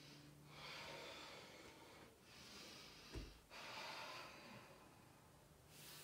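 A person breathing faintly in long, even breaths, about four of them, during slow exercise movement. There is a soft thump about three seconds in.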